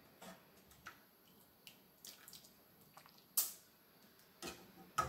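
Metal ladle scooping thin lentil dal from a pot and pouring it into a ceramic bowl: faint drips and small splashes with light clinks, and one sharper knock about three and a half seconds in.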